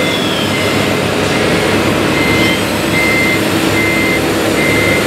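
Reversing beeper of an RC MAN 8x8 dump truck's sound module, beeping steadily a little faster than once a second while the truck backs up, over a steady engine sound.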